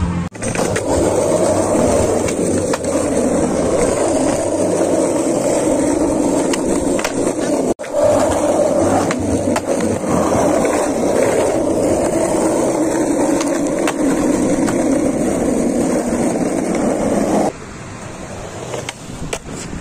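Skateboard wheels rolling over concrete: a steady, loud rumble with a few faint clacks. It breaks off for an instant about eight seconds in and drops away near the end.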